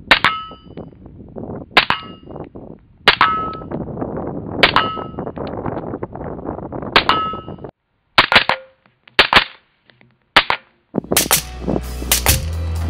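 Short-barreled rifle fired through a Rugged Surge 7.62 suppressor: about five single shots, a second or more apart, each followed by a brief metallic ring. After a sudden cut come two quick pairs of shots and a single one, and near the end faster shots over background music.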